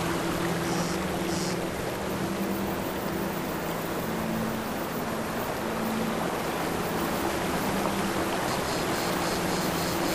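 Ambient drone music: a dense rushing hiss like flowing water over sustained low tones that shift slowly in pitch, with faint high tinkling coming in near the end.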